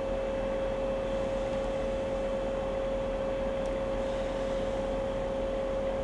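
Steady electrical hiss with a constant mid-pitched whine and a low mains hum, unchanging throughout, from the pipe inspection system's recording chain.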